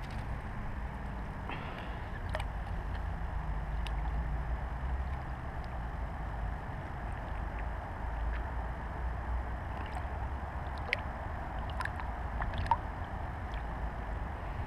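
Steady outdoor background noise with a low rumble of wind on the microphone. A few light clicks come near the end.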